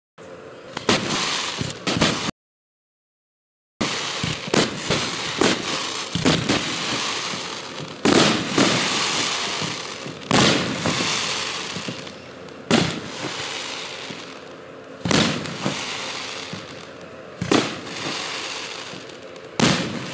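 Aerial fireworks bursting overhead: sharp bangs every two to three seconds over a continuous crackle. The audio drops out completely for about a second and a half, about two seconds in.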